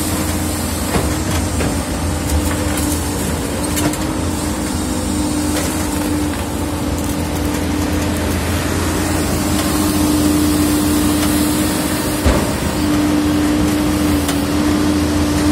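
Doosan wheeled excavator's diesel engine running steadily, a constant drone with a steady held tone over a low rumble. A few light knocks sound over it, the sharpest about twelve seconds in.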